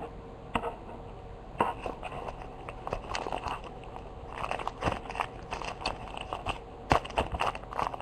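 A trading-card pack wrapper being crinkled and torn open by hand, with cards being handled: irregular crackles and small clicks.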